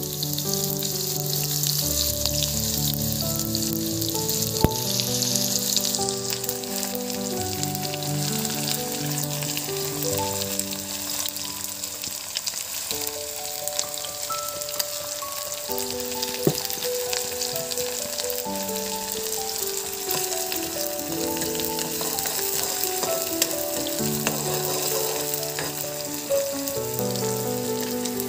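Sliced onions frying in hot oil in a wok, a steady sizzle, with background music of changing held notes playing over it.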